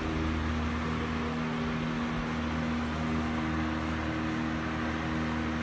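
Steady mechanical hum with a few constant low tones over a soft even hiss, no change throughout.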